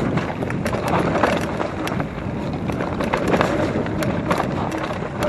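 Mountain bike riding down a dirt trail: steady tyre noise over the ground, with frequent clicks and rattles from the bike.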